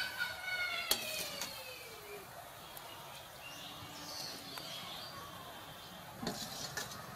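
An animal call falling in pitch over about two seconds opens the sound and is the loudest part. A slotted steel spoon clinks sharply on a steel kadai about a second in, a faint higher chirp follows, and there are a few more knocks of the spoon near the end.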